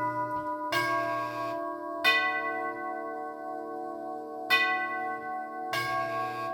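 1947 NuTone K44 Majestic door chime, freshly repaired, ringing its long brass tubes. Four notes of its 8-note tune are struck about a second and a quarter to two and a half seconds apart, each ringing on long and overlapping the next, with a low hum beneath some strikes.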